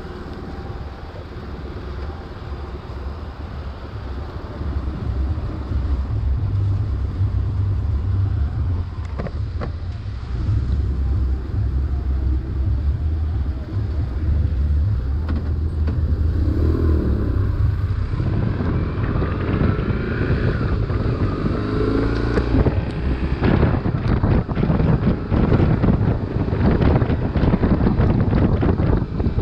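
BMW R1150RT's flat-twin boxer engine running at low speed with a steady low rumble, then rising in pitch about two thirds of the way in as the motorcycle accelerates. Wind buffeting on the microphone grows louder over the last several seconds as speed builds.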